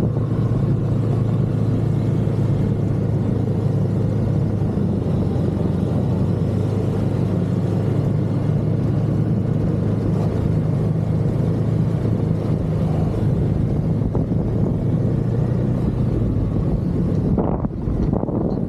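Snowmobile engine running steadily while under way. Its even tone breaks up near the end.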